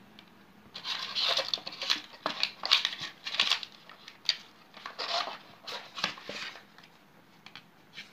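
Cardboard phone box and its paper insert being handled, with irregular rustling, scraping and light knocks as the charger and cable are taken out. The handling stops about six and a half seconds in.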